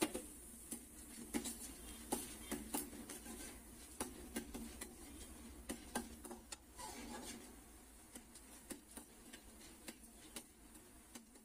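Irregular light clicks and ticks of a metal slotted spoon stirring and knocking in an aluminium kadai, with dal frying in a little oil. The clicks are most frequent in the first few seconds.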